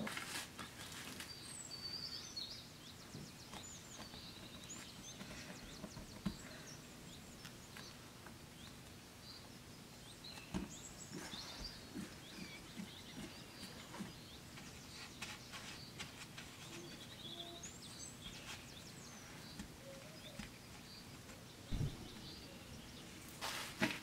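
Quiet hand-handling sounds of baking prep: soft taps and knocks as crumb-coated dough balls are set on a metal baking tray, and plastic wrap rustling. Faint high chirps sound in the background, and a few louder knocks come near the end as the tray is covered.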